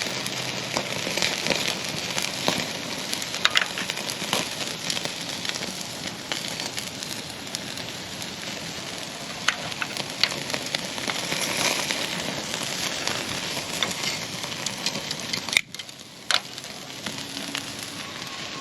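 Ribeye steak sizzling on a hot grill grate over charcoal, with steady frying hiss and many small crackles. The sizzle drops away suddenly near the end, leaving a few faint crackles.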